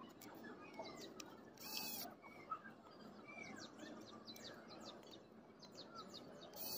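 Faint bird chirps in the background, with light ticks and clicks and a low steady hiss. A short hissing burst comes about two seconds in and another at the end.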